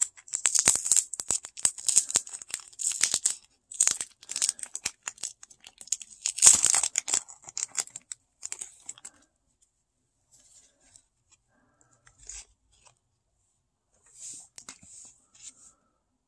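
Plastic card sleeves and a padded bubble mailer being handled and pulled apart: a dense run of crinkling and crackling for the first eight or nine seconds, loudest about six and a half seconds in, then only a few scattered rustles.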